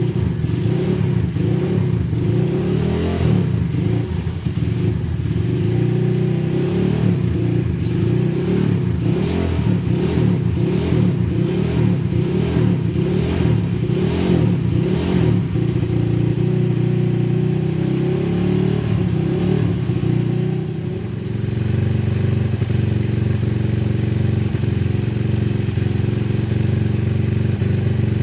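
Suzuki Satria FU motorcycle's single-cylinder four-stroke engine running, with a regular pulsing rise and fall through the first half and a brief drop in level about twenty seconds in.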